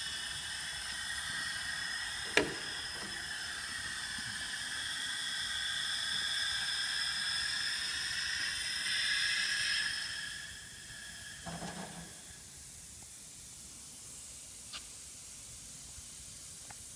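Steady hissing noise from a Krantz 120 cm extractor, which dies away about ten seconds in. A sharp click comes about two seconds in and a short knock about twelve seconds in.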